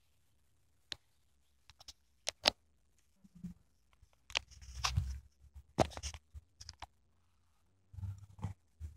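Handling noise from a phone camera being picked up, moved and set down: scattered clicks, fingers rubbing over the microphone, and a few soft low thumps.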